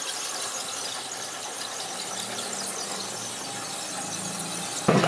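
3D-printed GP7 model train running along the track with a steady high squeal, ending in a sudden thump just before the end.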